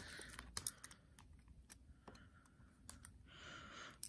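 Faint, scattered light clicks of small metal and plastic Beyblade parts being handled between the fingers, with a short soft hiss near the end.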